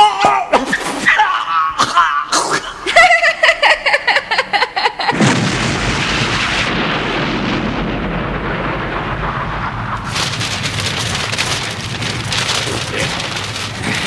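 Animated-action sound effects: a quick run of sharp bangs for about five seconds, then a large explosion that goes into a long, steady rumble.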